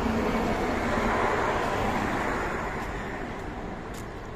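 Road traffic: a vehicle passing close by, its engine and tyre noise swelling over the first second or two and then fading away.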